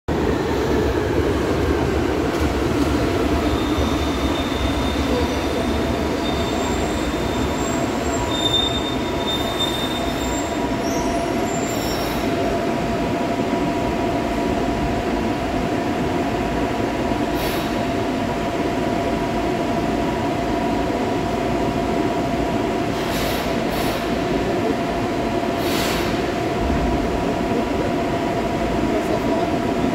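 Brasília Metro series 1000 electric train in an underground station: a whine falling in pitch over the first couple of seconds, a thin high squeal from about 3 to 10 seconds in, then a steady hum with two held tones as the train stands at the platform.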